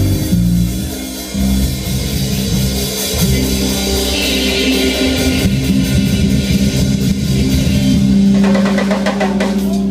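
Live rock band playing loudly on electric guitar, electric bass and drum kit. Near the end, a rapid run of sharp hits comes over a held low note.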